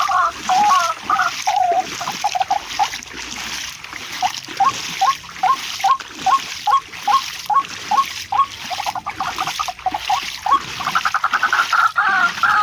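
A bird calling over and over in short rising notes, about two to three a second, over splashing water.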